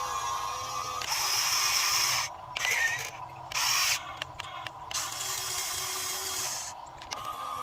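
Radio-controlled model excavator's electric motors and gears whirring and grinding, starting and stopping in short bursts as it works.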